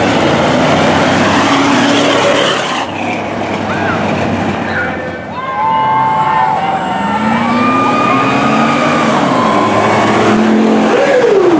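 Pickup truck engines revving and accelerating hard as the trucks race down a dirt drag strip, with the engine pitch rising as they pull away. The sound changes abruptly about three seconds in and again near the end.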